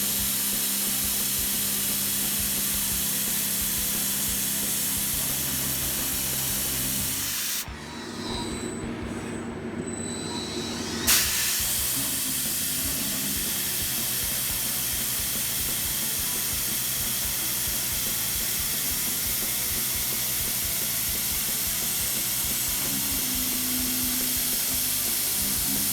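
Ocean Avenger Plus beam coping machine at work on steel: a steady loud hiss over a low hum. It drops away for a few seconds about eight seconds in and comes back with a sharp click.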